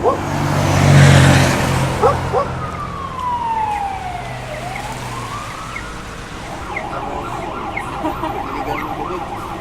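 Emergency vehicle siren in city traffic: a slow wail sliding down and back up, then switching to a fast warbling yelp. A loud rush of a passing vehicle with a low engine hum comes first, the loudest moment about a second in.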